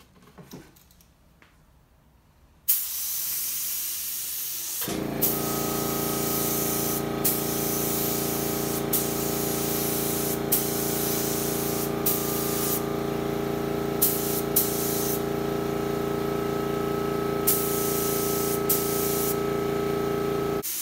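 Iwata LPH 80 spray gun hissing as it sprays paint in repeated passes, the air flow dipping and starting again between passes. About two seconds after the spraying begins, the 2.6-gallon air compressor starts and runs steadily with a hum under the hiss, stopping shortly before the spraying ends.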